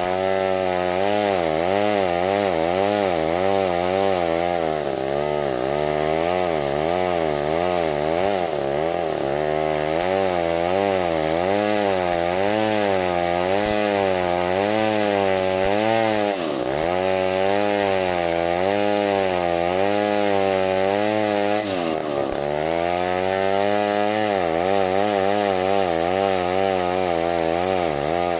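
Stihl 070 two-stroke chainsaw running under load, cutting timber. Its engine pitch wavers up and down about once a second, with two sharp dips, near the middle and about two-thirds through, as the saw bogs in the cut.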